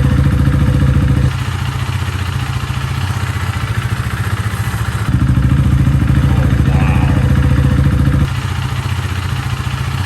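Husqvarna Vitpilen 401's single-cylinder engine idling steadily through an exhaust with the stock muffler removed, the header chamber left in. The level drops about a second in, comes back up around five seconds, and drops again near eight seconds, with no change in engine speed.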